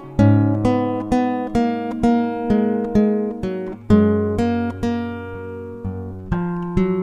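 Solo acoustic guitar music, picked one note at a time at about two notes a second, each note ringing and fading.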